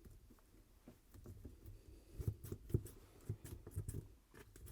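Faint, scattered clicks and light knocks of a new gearstick knob and its top cap being handled and worked apart by hand.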